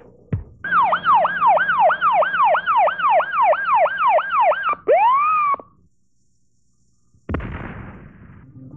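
Electronic siren sound effect: rapid falling wails, about three a second, then one longer falling wail that cuts off. After a short silence comes a sudden crash that fades away.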